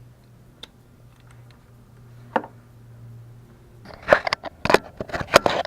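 A couple of isolated clicks over a faint steady hum, then about four seconds in a quick, irregular run of sharp clicks and rattles: a hand tool and a fastener being worked on the car's front turn signal assembly, with a retaining bolt coming out.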